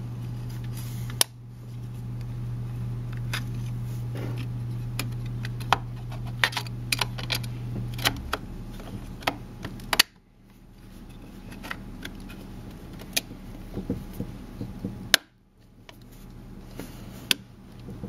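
Light metallic clicks, taps and scrapes as a perforated metal antenna plate is handled and seated into a Mac Mini's aluminium case. A low steady hum runs underneath and stops about eight seconds in.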